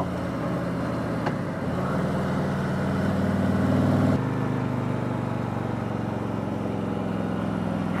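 Harley-Davidson Electra Glide Standard's V-twin engine running on the move, with road and wind noise. The engine note builds gradually for a few seconds, then drops abruptly about halfway through and holds steady.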